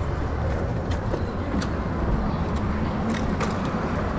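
Steady wind rush and tyre rumble from riding an e-bike along a road, with a few faint clicks.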